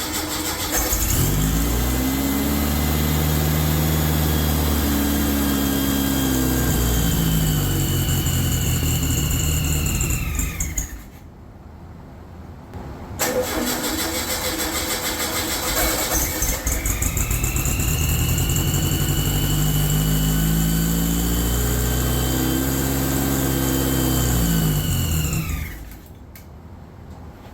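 Rebuilt Volkswagen 40 hp air-cooled flat-four engine on its first start, firing and running twice. Each time it rises in pitch, runs for about ten seconds, then winds down and stops. It does not keep running: the new build's carburetion still needs tuning.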